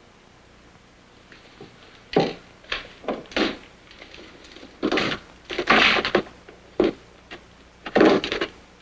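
Plaster being scraped and chipped out of a wall with a small hand tool: irregular short scraping and crunching bursts, about ten in all, starting about two seconds in.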